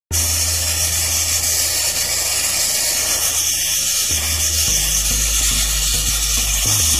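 Sandblasting nozzle giving a loud, steady hiss as the abrasive jet strikes the rusty steel body of a dump truck. A fainter low hum runs underneath and shifts in pitch a few times in the second half.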